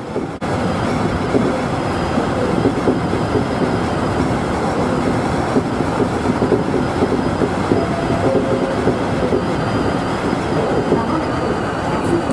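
Running noise of a Tobu Utsunomiya Line local electric train at speed, heard from inside the front car: a steady rumble of wheels on the rails that comes in about half a second in.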